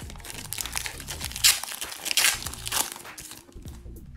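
Foil wrapper of a hockey card pack crinkling as it is torn open by hand, with the loudest rips about one and a half to three seconds in.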